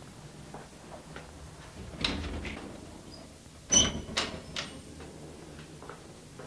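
A few scattered knocks and clicks from a person moving about and handling things. The loudest is a sharp knock with a brief ring a little under four seconds in.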